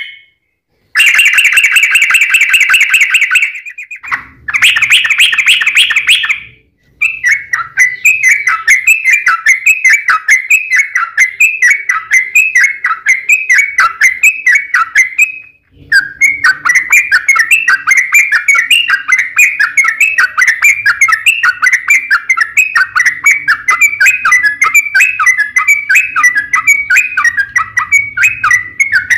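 Yellow-vented bulbul (trucukan) singing a long run of rapid, bubbling, chattering notes, broken by a few short silences.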